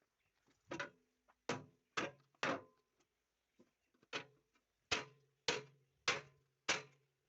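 Hammer blows on steel, about every half second, each with a short metallic ring: four strikes, a pause of over a second, then six more.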